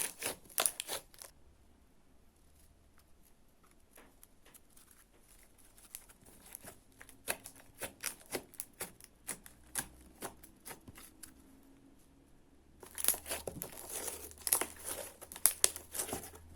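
Homemade slime being squeezed and pulled by hand, giving sticky crackling and popping clicks: a cluster at the start, scattered clicks through the middle, then dense crackling near the end.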